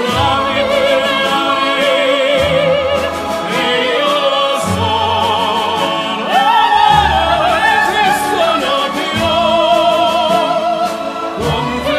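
Background music: an operatic voice sings long notes with wide vibrato over an instrumental accompaniment.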